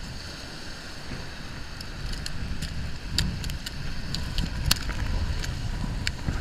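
Wind buffeting the microphone over low surf noise, with a scatter of sharp clicks and taps from about two seconds in.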